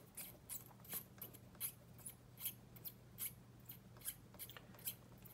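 Pin vise (hand drill) with a fine bit being twisted into cast resin, drilling a pin hole: faint, short scratchy strokes, about two or three a second, as the bit cuts.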